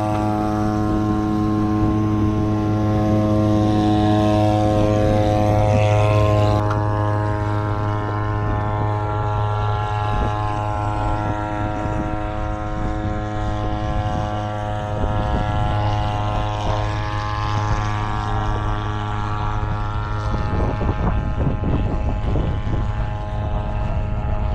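A boat motor running at a constant speed: a steady low hum with many overtones, over a hiss of wind and water.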